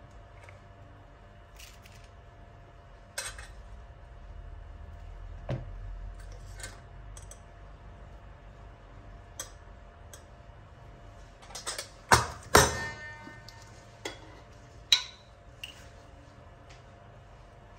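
A metal spoon clinking and tapping against small steel spice bowls: scattered light taps, with a cluster of louder clinks about two-thirds of the way through, one of them ringing on briefly.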